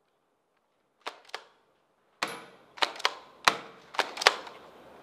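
Pump-action airsoft shotgun being racked and fired in quick succession: a double clack of the pump slide alternating with a single sharp shot, about one cycle every second and a half. Each report echoes off bare concrete walls.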